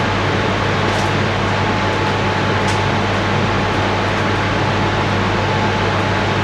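A machine running steadily: a loud, even hiss over a low hum that doesn't change.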